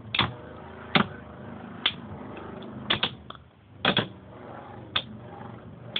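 Two Beyblade spinning tops whirring in the stadium, with sharp clacks as they collide roughly once a second, a few in quick pairs.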